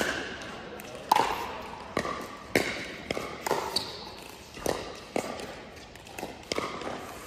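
Pickleball rally: about eight sharp pops of paddles hitting the plastic ball, half a second to a second apart, each ringing briefly in the large indoor court hall.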